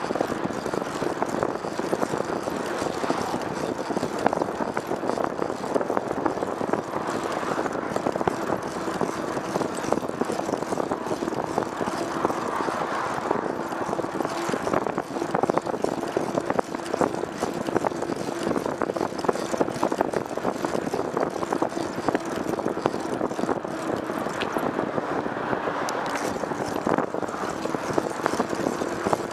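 A vehicle travelling steadily, with continuous engine and road noise and a steady low hum under a dense crackle.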